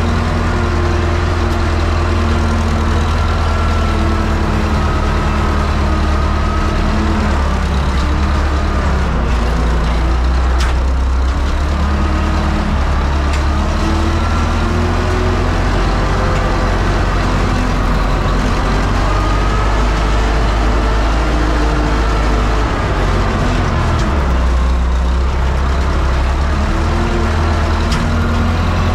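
UTB Universal 650 tractor's four-cylinder diesel engine running steadily under load as it pulls a disc harrow through dry soil, heard from inside the cab. Its pitch wavers slightly up and down.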